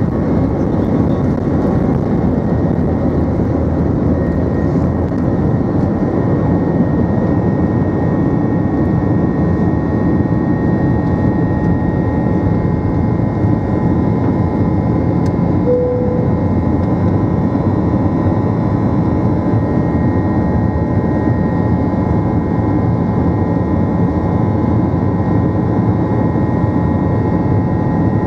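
Airbus A321-200's jet engines at takeoff thrust, heard from inside the cabin over the wing: a steady, loud rush of engine and air noise with faint steady whining tones, unchanged from the end of the takeoff roll through liftoff and the initial climb. A short tone sounds once about halfway through.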